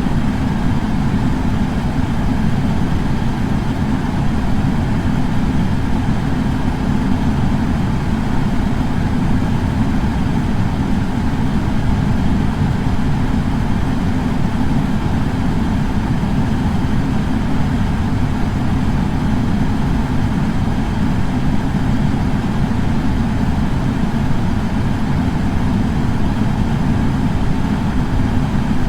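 Air purifier fan running steadily: a constant low whooshing hum with no change in level or pitch.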